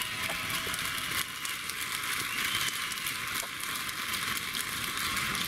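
Steady crowd noise from spectators in a hall, with a few faint clicks.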